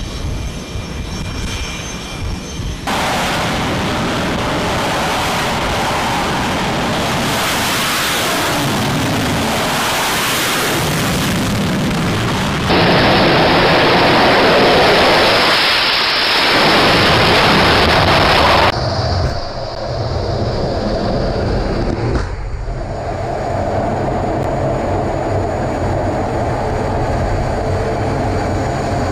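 Jet engines of Navy fighter aircraft running on an aircraft carrier's flight deck, heard in several edited clips that change abruptly. The loudest stretch runs from about 13 to 19 seconds in, followed by steadier, quieter engine noise.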